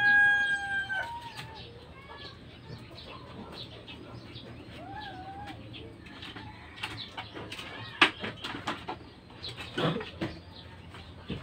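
A rooster's crow ends about a second in, its long held note trailing off, followed by a few short softer chicken calls. Scattered knocks and clatter of household things run through it, with one sharp knock about two-thirds of the way through.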